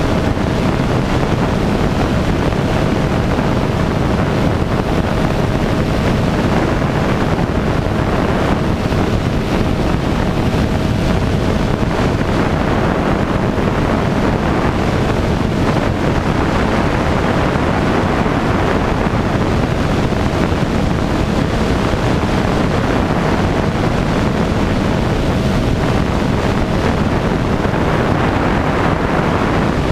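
Cheetah light aircraft's engine and propeller running steadily in cruise, under heavy wind rushing over an outside-mounted microphone. A faint steady tone holds above the noise.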